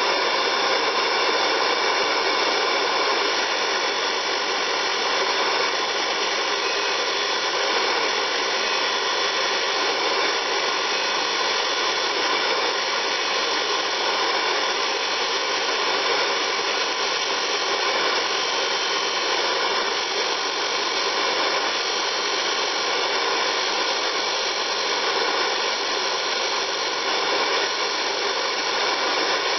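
Grinding machine used for sharpening milling cutters, running steadily: an even hiss with several steady whining tones through it.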